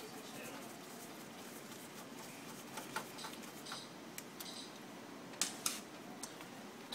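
Scattered small clicks and light metallic ticks of screws and a screwdriver being worked on the metal drum-unit flange of a copier, the sharpest a little after five seconds in, over a steady faint background hiss.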